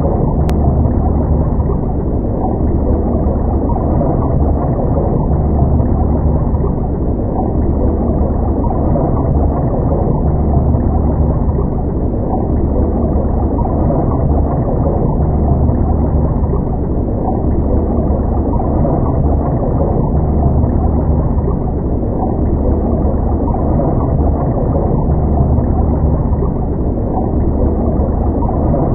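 Underwater ambience: a steady, muffled deep rumble of water that swells and fades every few seconds.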